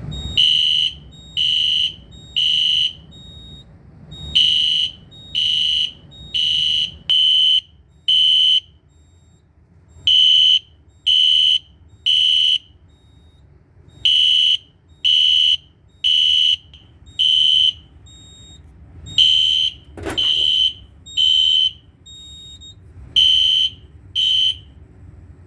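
Older EST Genesis LED horn strobe sounding in alarm on its low-volume code-3 setting: a high-pitched screech in short blasts about a second apart, in groups broken by short pauses.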